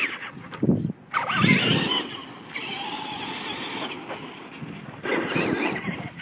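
Traxxas Monster Mutt radio-controlled monster truck driving and sliding on dirt, its drivetrain whining and its tyres scrabbling over the ground in short spurts of throttle, the loudest about a second and a half in and again near the end.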